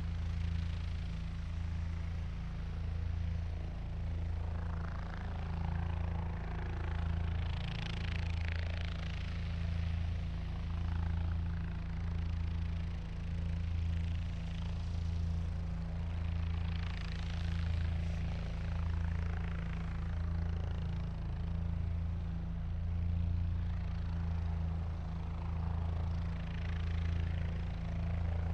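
Helicopter running at hover: a steady low rotor beat under a turbine hum, with hissy whooshing swells every few seconds.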